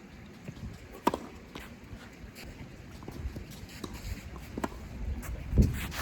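Wind rumbling on the microphone at a tennis court, with a few scattered sharp knocks of a tennis ball and footsteps. The sharpest knock is about a second in, and a heavy thump comes near the end.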